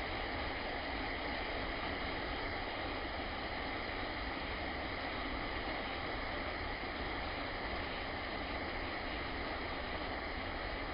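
Waterfall's falling water rushing in a steady, unbroken roar of noise.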